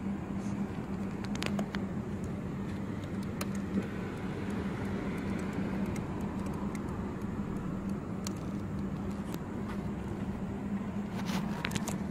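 Honda CBR1000RR Fireblade's inline-four engine idling steadily, with a few sharp clicks near the end.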